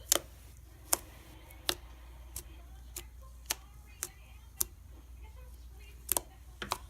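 Fluffy slime being poked with fingers: short, sharp pops, about ten in all at uneven intervals, with a gap of about a second and a half before the last two. A steady low hum lies underneath.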